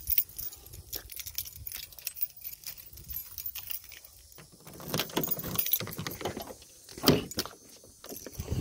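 A set of keys jangling, with scattered small clicks and knocks, louder in clusters about five and seven seconds in.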